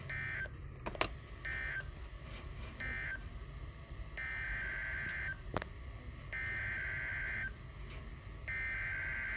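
Emergency Alert System SAME data bursts on NOAA Weather Radio: a buzzy two-tone digital screech. It sounds three times briefly, the end-of-message code closing the previous warning, then three times about a second long, the header that opens the next severe thunderstorm warning. Faint static clicks sound between the bursts.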